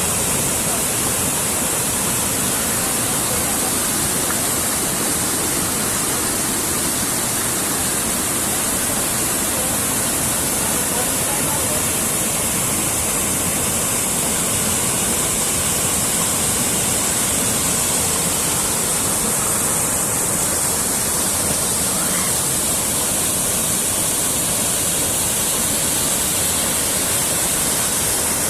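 Waterfall: water falling and rushing in a steady, unbroken roar of noise with a strong hiss.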